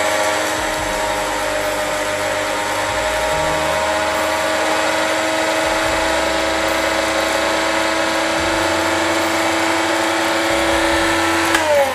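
Anex electric spice grinder running steadily, its motor whining as it grinds whole green cardamom pods to powder; near the end it is switched off and the whine falls away as the blades spin down.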